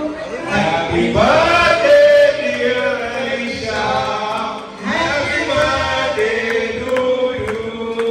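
A group of voices singing together in long, held notes.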